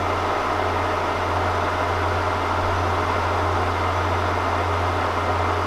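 Kearney & Trecker K&T 307 S-12 milling machine running with its spindle turning but not cutting: a steady, even mechanical hum.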